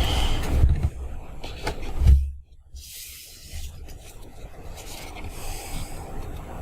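Paper being handled, rubbed and pressed by hand close to the microphone, with a low thump about two seconds in, then quieter rubbing.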